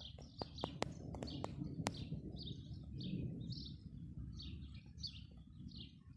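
Small birds chirping in short repeated calls, about two a second, over a steady low rumbling background, with a few sharp clicks in the first two seconds.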